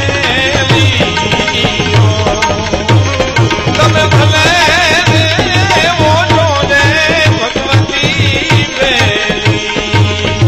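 Gujarati devotional folk music: a steady hand-drum beat under a wavering, ornamented melody line.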